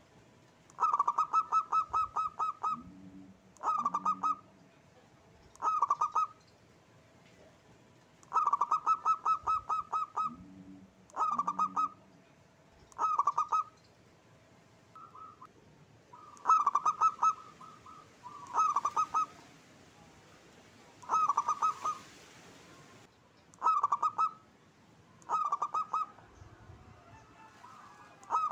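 Zebra dove (perkutut) singing: phrase after phrase of rapid, staccato cooing notes, a new phrase every second or two.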